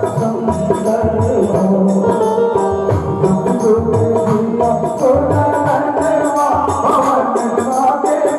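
Bhajan music: a steady hand-drum beat with fast jingling percussion under a held melody line.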